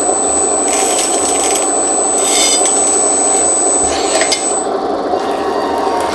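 1:14-scale hydraulic RC skid steer loader running, its electric motors and hydraulic pump giving a steady gritty hum with a thin high whine that stops about two-thirds of the way through. Short bursts of gear and mechanism rattle come about a second in, at two and a half seconds and at four seconds.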